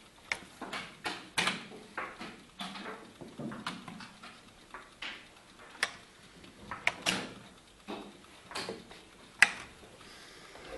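Wooden chess pieces clacking onto the board and being taken off, with the buttons of an analogue chess clock pressed between moves in a fast blitz game: a rapid, irregular series of sharp clicks and knocks, the sharpest about nine seconds in.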